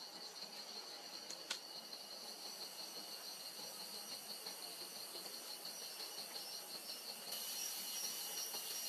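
Forest insects chirping: a steady, finely pulsing high trill over a soft hiss, with a brighter high hiss joining about seven seconds in. A single light click about a second and a half in.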